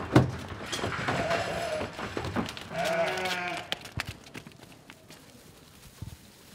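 Sheep hooves clattering and knocking as a flock steps off a livestock trailer, with one loud knock right at the start. A sheep gives one long, wavering bleat about three seconds in, and the rest is quieter.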